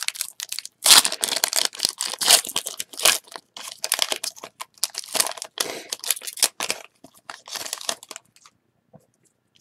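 Foil trading-card pack wrapper being torn open and crinkled by hand, in irregular crackling rustles that die away about eight seconds in.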